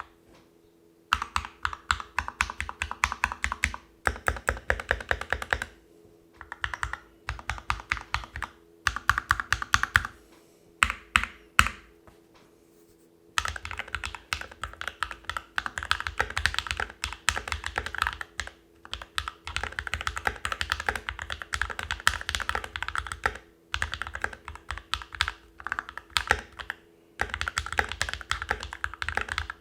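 Fast typing on a mechanical keyboard fitted with lubed and filmed Alpaca v2 linear switches, a NovelKeys NK65 Entry Edition with stabiliser mod. Quick runs of keystrokes are broken by short pauses, with a longer break of about a second and a half around the middle.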